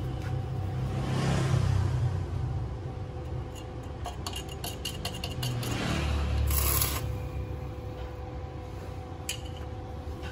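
Stick arc welder crackling and spitting in short runs as a steel mount for a bump stopper is welded on, with the loudest sputtering burst about six and a half seconds in, over a steady faint hum.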